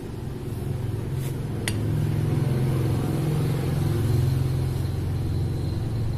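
An engine running steadily: a low drone that grows louder about two seconds in, with one sharp click a little before that.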